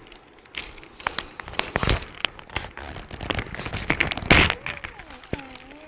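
Packaging crinkling and rustling as the contents of a tablet's box are handled and pulled out: a run of short crackles, with the loudest rustle about four seconds in.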